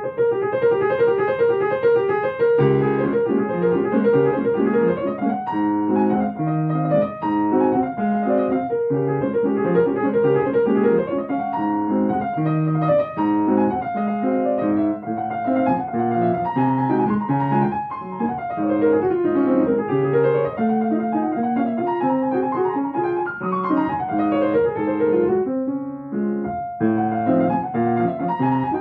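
Solo piano playing a fast piece, a quick running upper line over steady bass notes. The playing breaks off briefly about 26 seconds in, then resumes.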